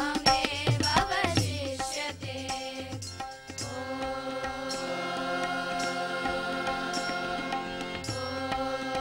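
Schoolgirls singing a devotional prayer in unison, accompanied by tabla and harmonium. Quick tabla strokes in the first two seconds give way to long held notes over a steady drone.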